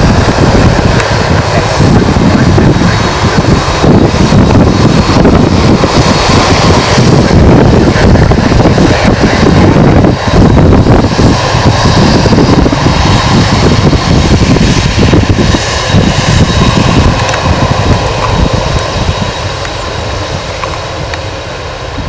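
Boeing 747-400 freighter's four turbofan engines running as it moves close past, a steady high whine over a loud deep rumble, fading over the last few seconds as it moves away.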